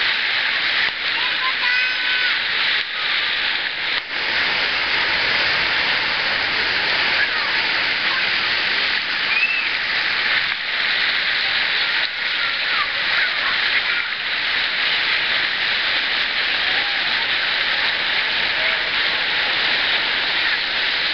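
Steady rush of spray-fountain water pouring down into a shallow pool, with faint distant children's shouts and calls here and there.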